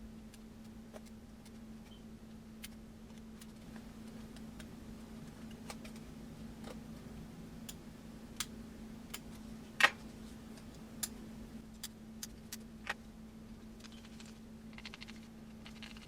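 Small screwdriver and tiny screws clicking and tapping while a Samsung Galaxy S8 is taken apart: scattered light clicks, a sharper one about ten seconds in, and a brief faint rasping near the end, over a steady low hum.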